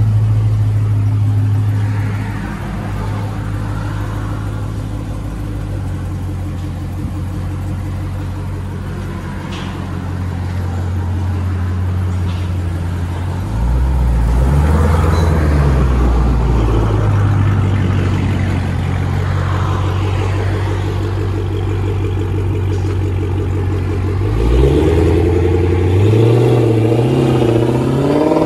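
Dodge Challenger Hellcat's supercharged 6.2-litre Hemi V8 idling loud through an aftermarket exhaust. It is revved once about halfway through, then pulls away and accelerates near the end.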